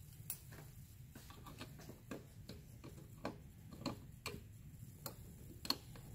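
Faint, irregular metal clicks and ticks, about one or two a second, from a small hex key working a tiny screw into the side of an electronic keypad door lock.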